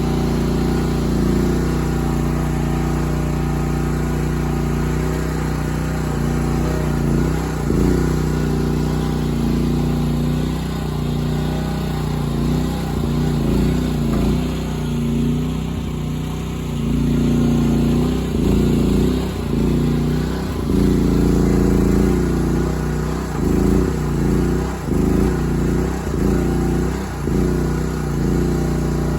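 Briggs & Stratton petrol engine of a mini skid steer loader running steadily, its note dipping and recovering several times in the second half.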